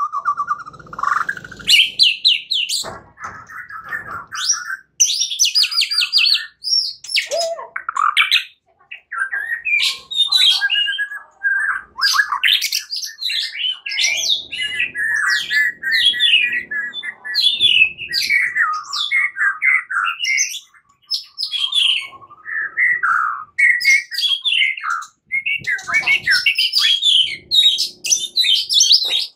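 Male white-rumped shama singing a long, varied song of loud whistles, rapid trills and sweeping phrases with only brief pauses. It is the combative song the title calls a shama learning to fight.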